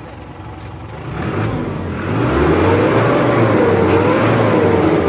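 Isuzu Elf's 4HF1 four-cylinder diesel engine revved from idle, its pitch rising, dipping briefly and rising again before falling back near the end.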